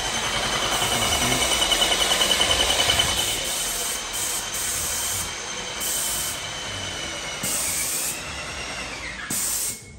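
Paint sprayer spraying paint onto drywall: a steady spray hiss with a high whine from the machine, pulsing quickly for the first few seconds. Near the end the whine slides down in pitch and the sound cuts off sharply.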